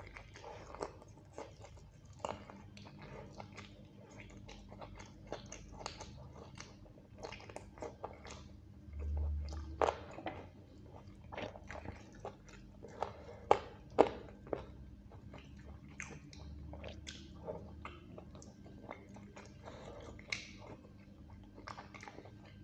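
Close-miked mukbang eating: biting and chewing chicken kosha and rice eaten by hand, with many short wet smacks and clicks. A faint steady hum runs underneath from about two seconds in, and a brief low rumble comes about nine seconds in.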